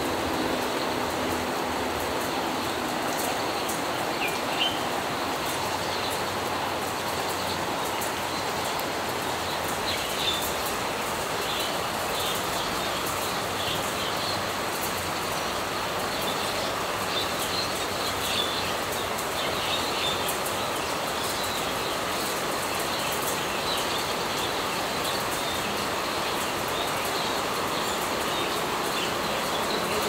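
Steady, even outdoor background noise, with small birds chirping faintly now and then.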